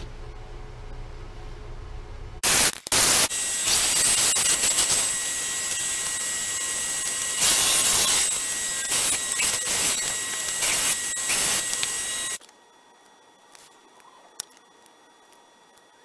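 A low steady hum, then about two and a half seconds in a bandsaw running and cutting through a block of wood: a loud rasping hiss with a steady high whine that cuts off suddenly near the end. A few light ticks follow.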